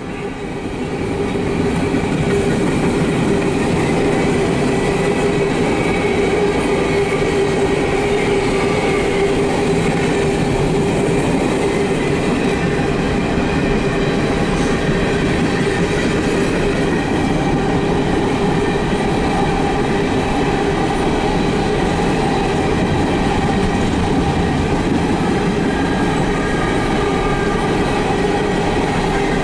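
Empty coal cars of a CSX freight train rolling past close by: a steady rumble and clatter of steel wheels on the rails, with a metallic ringing over it. It grows louder over the first couple of seconds, then holds steady.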